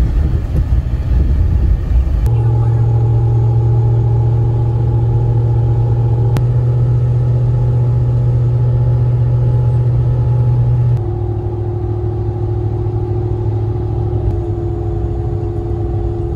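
Steady engine and road drone heard inside a vehicle's cabin at highway cruising speed, a low hum with a few held tones above it. The drone changes pitch and level abruptly about two seconds in and again about eleven seconds in.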